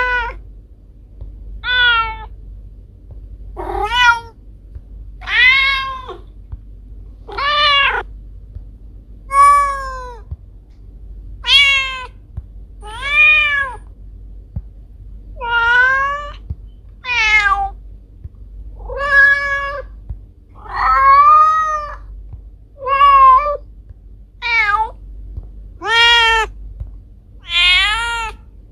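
A domestic cat meowing over and over, about one meow every two seconds, each call rising and then falling in pitch, over a steady low hum.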